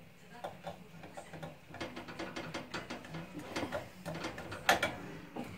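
Kitchen utensil clicking and scraping irregularly against cookware while cream is stirred a little at a time into melting chocolate, with the sharpest clicks near the end.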